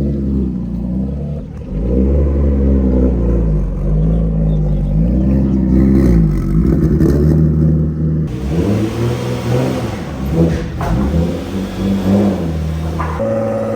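Turbocharged Infiniti G35 coupe's 3.5-litre VQ V6, breathing through a Motordyne exhaust, revved again and again, its pitch rising and falling with each blip.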